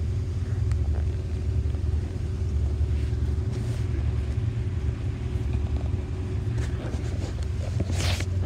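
Boat engine running steadily, a low rumble throughout, with a brief hiss near the end.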